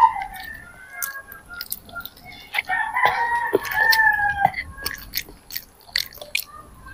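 A rooster crowing once, a single long call of about a second and a half starting nearly three seconds in, over scattered short clicks and smacks of noodles being eaten by hand.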